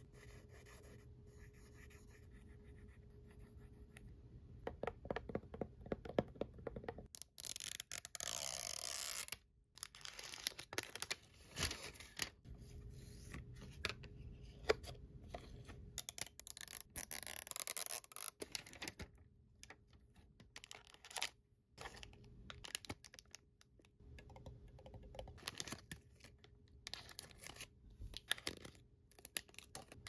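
Sharpie marker scratching on a paper collector checklist, then a cardboard Disney Doorables blind box being opened: two bouts of tearing, each about two seconds long, with rustling, scraping and many small taps and clicks of fingers on the packaging in between.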